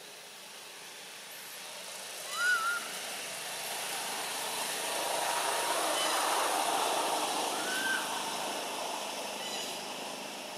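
Baby long-tailed macaque crying: short squeals that rise and fall in pitch, the loudest a double squeal about two seconds in and a fainter one near eight seconds. A broad wash of background noise swells and fades in the middle.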